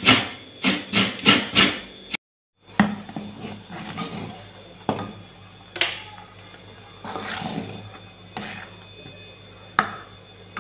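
Hands rubbing grated coconut against a steel plate in quick scraping strokes, about three a second, for the first two seconds. After a short break, a wooden-handled coconut-shell ladle stirring curry in a clay pot, knocking sharply against the pot about five times over a low steady hum.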